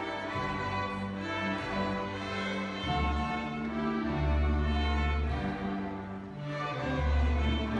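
Student string orchestra of violins, cellos and double bass playing together, with long, loud low notes held in the bass several times in the second half.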